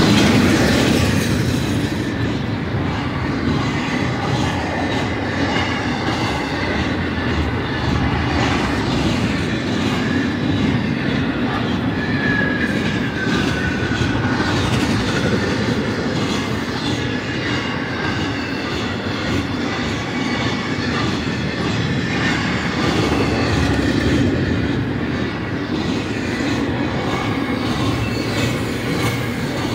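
Intermodal freight cars of a BNSF double-stack train passing at speed: a steady rumble and rattle of steel wheels on the rails, with faint, thin, high squeal tones now and then.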